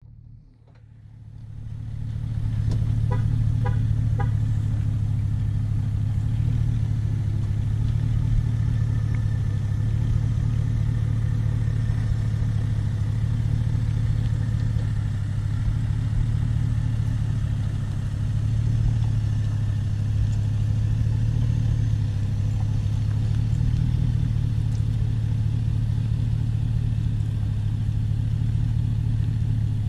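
Engine running steadily at low speed, a low hum that swells and eases slightly, with three short beeps about three seconds in.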